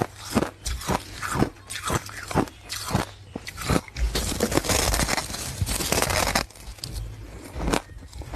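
Close-miked bites and chewing of hard ice: a run of sharp separate crunches, then a denser stretch of continuous crunching about halfway through, then single crunches again.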